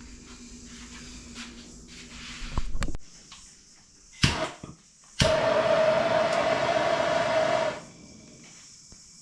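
A heat gun blowing for about two and a half seconds, a steady hiss with a whine, switched on and off abruptly: heat used to shrink tubing over a new wire connection to seal it waterproof. Knocks and a sharp click come before it.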